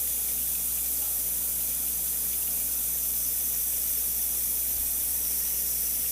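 Tap water running steadily into a glass, an even continuous hiss.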